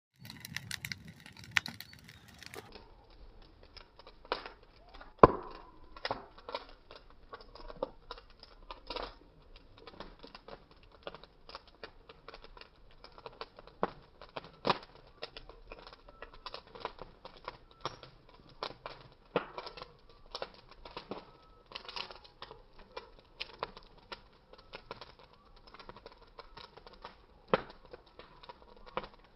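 Bonfire crackling and popping: irregular sharp snaps over a faint hiss, with the loudest pop about five seconds in.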